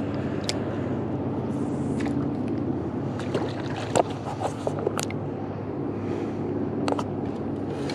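Steady low motor hum, with a few sharp clicks and knocks scattered through it.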